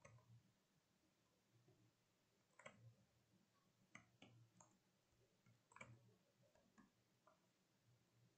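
Faint, irregular keystrokes on a computer keyboard, a dozen or so separate clicks as a line of code is typed.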